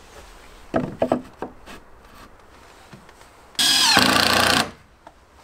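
Cordless drill-driver running for about a second as it drives a screw into the wooden wall, after a few light knocks of handling the board about a second in.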